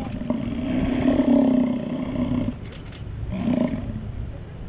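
American bison bellowing: one long, deep roar of about two and a half seconds, then a shorter one about three and a half seconds in.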